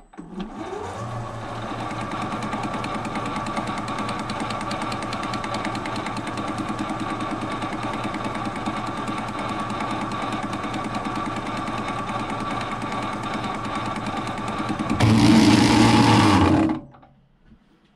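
Metal lathe spinning up and running with a homemade belt-driven polygonal turning tool, a steady whirr with a fast rhythmic clatter. About fifteen seconds in it turns suddenly louder and harsher for nearly two seconds, when the tool's drive belt slips, and then the machine runs down and stops.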